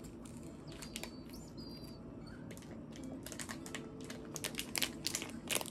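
Crisp crunching and chewing of a waffle-patterned wafer ice cream bar, a run of sharp crackles that grows denser and louder about four to five and a half seconds in.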